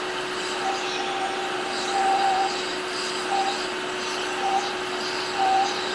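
Hot air rework station blowing steadily onto the phone's circuit board to melt the solder holding the charging port, with a steady hum under the rushing air and a higher tone that comes and goes several times.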